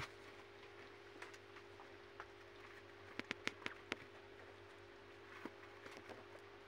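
Kittens' claws ticking and scratching on the cardboard floor of a box: scattered soft taps, with a quick run of about five sharp clicks a little over three seconds in, over a faint steady hum.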